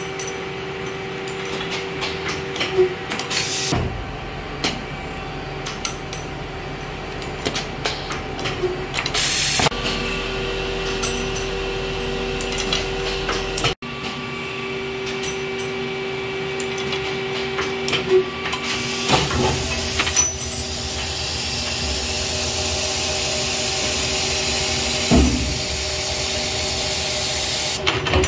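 Tube end closing (spinning) machine running: a steady motor hum with clicks and knocks from the mechanism and bursts of compressed-air hiss from its pneumatics, the longest hiss in the second half.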